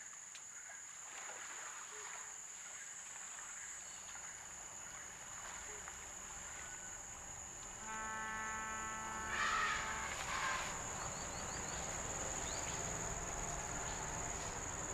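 Tropical forest ambience: a steady high-pitched insect drone of cicadas or crickets. About eight seconds in, a held call with overtones begins, and two louder, harsher calls follow around nine and a half and ten and a half seconds.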